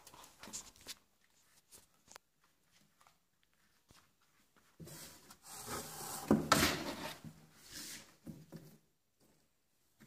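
Rubbing and scraping on cardboard, loudest from about five to nine seconds in, with a few light clicks and knocks before it.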